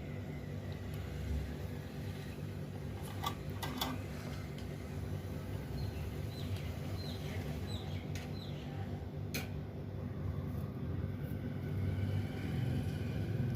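Steady low hum and whir of a fan or mains-powered bench equipment, with a few sharp clicks and several faint, short falling bird chirps.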